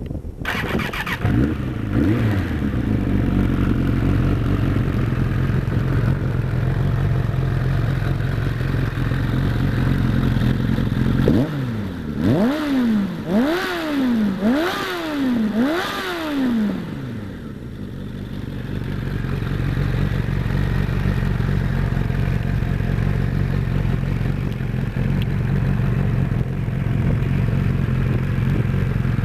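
Suzuki GSF600 Bandit's inline-four engine starting up and settling into a steady idle. About halfway through, the throttle is blipped four times in quick succession, each rev rising and falling, before it drops back to idle.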